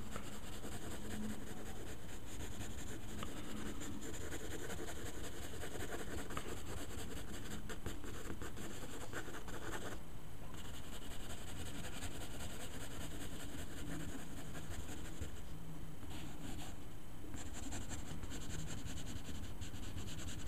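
Graphite pencil scratching on paper in quick sketching strokes, easing off briefly about halfway through and again near the end.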